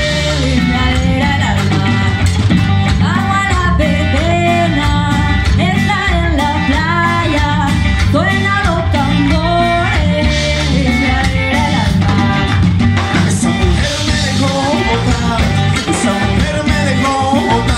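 Live band playing amplified music: a woman singing into a microphone over electric guitar, bass, drum kit and congas.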